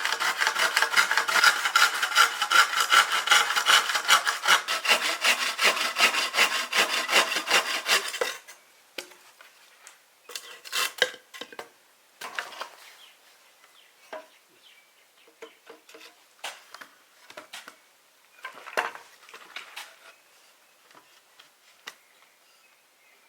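Hand saw cutting wood in rapid, even back-and-forth strokes, stopping about eight seconds in. After that, scattered light scrapes and knocks of wood being handled.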